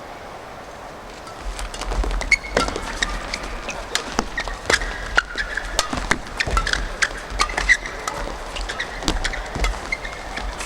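Badminton doubles rally: rackets hit the shuttlecock in quick, sharp cracks, with shoes squeaking on the court floor and footfalls thudding underneath. The rally starts about a second and a half in, after a quieter stretch of crowd murmur.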